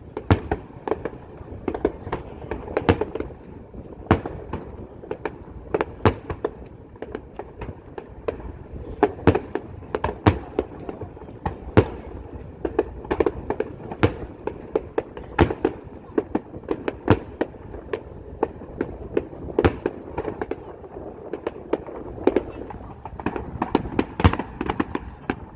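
Aerial fireworks bursting in a dense display: dozens of sharp bangs at an irregular pace, often several a second, over a continuous rumble of further explosions.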